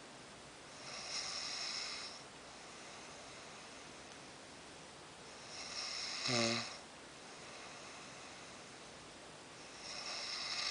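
A sleeping man snoring, three mild snores about four to five seconds apart; the middle one is the loudest, with a short low rattling tone.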